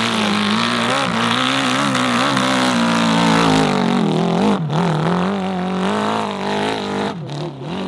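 Modified hill-climb motorcycle engine running hard under load up a steep dirt slope, its pitch wavering up and down as the throttle is worked. The revs dip briefly about four and a half seconds in and again near the end.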